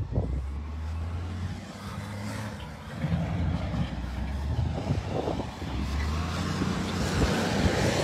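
Strong wind buffeting the phone's microphone: an uneven low rumble, with a hiss that grows louder near the end.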